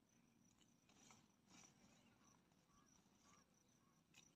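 Near silence: a faint steady high insect drone, with a few soft scrapes of hands digging charred pieces out of loose soil.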